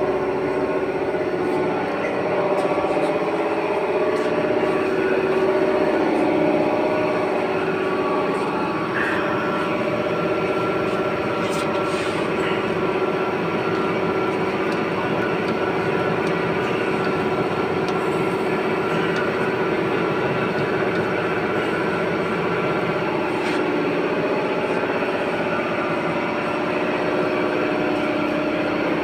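Air compressor running steadily as it fills its tank: a continuous hum with several steady tones.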